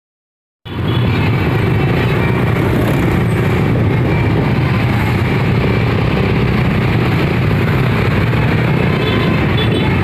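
Bus engine running steadily with a loud low rumble, starting abruptly just under a second in.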